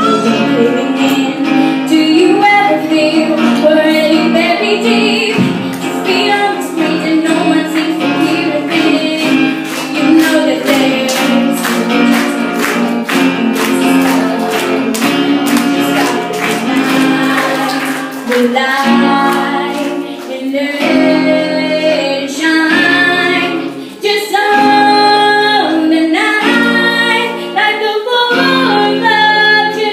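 A girl singing a pop song solo while strumming her own acoustic guitar, a live performance with the strumming heaviest through the middle stretch and the sung phrases standing out more clearly near the end.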